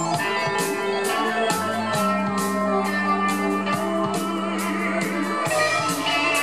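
Live rock band playing: electric guitar and keyboard over long held low notes, with cymbals struck about twice a second. The low notes change pitch about two seconds in and again near the end.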